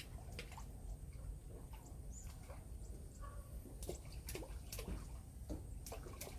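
Faint scattered water drips and small splashes at the water's edge, a dozen or so, most of them in the second half, over a low rumble of wind on the microphone.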